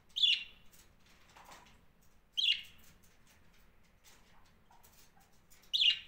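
Budgerigars giving three short, sharp chirps about two to three seconds apart, with faint clicks between the calls.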